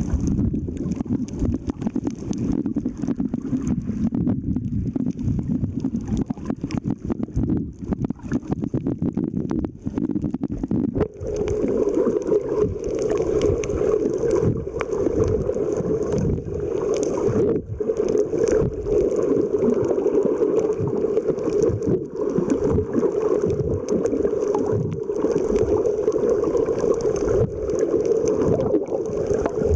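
Muffled underwater rushing and gurgling of water against an underwater camera, with a steadier hum coming in about a third of the way through.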